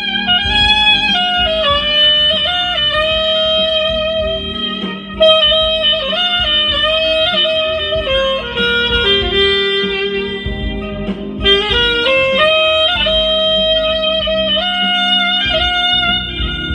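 Straight soprano saxophone playing a slow melody of long held notes. It steps down to a low held note in the middle and climbs back up, with short breaks about five seconds in and again near eleven and a half seconds.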